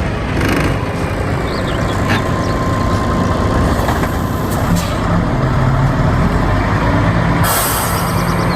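Heavy truck engine running steadily, with a loud air-brake hiss starting near the end.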